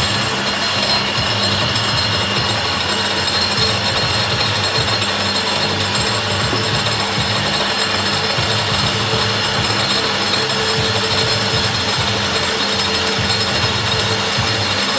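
A belt linisher (belt sander) running steadily while a steel retract strut leg is dressed on it.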